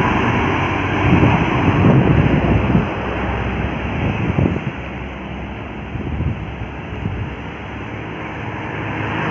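Heavy intercity bus diesel engines labouring up a steep climb as they pass close by, loudest in the first three seconds and then easing off.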